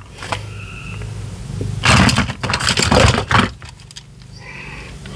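Small plastic and metal toys clattering against each other in a cardboard box as they are rummaged through and a plastic toy airplane is pulled out. The clatter is loudest in a dense stretch about two seconds in, lasting a second and a half.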